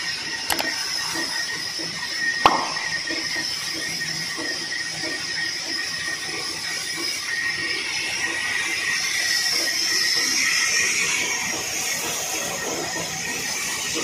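Band sawmill running, a steady mechanical noise with a high whine from the blade, and a single sharp knock about two and a half seconds in.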